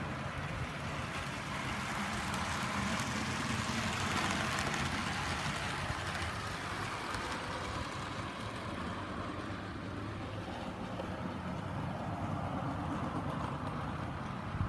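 Model train running on the layout, the hum of its motor and the noise of its wheels on the track swelling to their loudest about four seconds in, then easing off.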